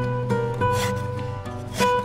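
Background music on a plucked string instrument, with held notes that change pitch a few times.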